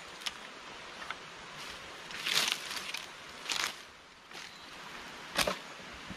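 Rustling and footsteps in dry forest leaf litter over a steady hiss: a few short crunchy rustles, the longest about two and a half seconds in, and a sharper knock near the end.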